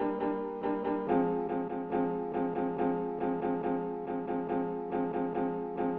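Background music: a keyboard playing evenly pulsing chords, shifting to a new chord about a second in.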